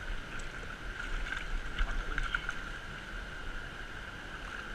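Steady rush of a shallow mountain river flowing over a stony bed, with a few faint clicks about one to two and a half seconds in.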